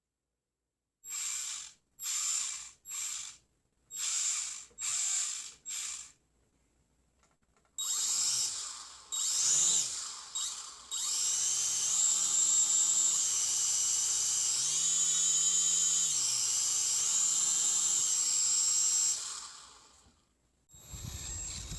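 Small electric motors of a toy RC flying car/quadcopter, first blipped in six short bursts, then running for about eleven seconds with a whine that steps up and down in pitch as the throttle changes, before spinning down.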